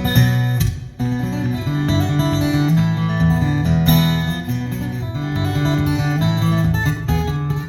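Acoustic guitar played live: strummed chords over a low bass line, with a brief dip just before a second in.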